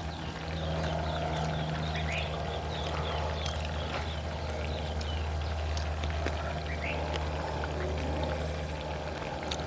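Birds chirping: a quick run of short, falling high notes, then a few scattered calls later, over a steady low hum.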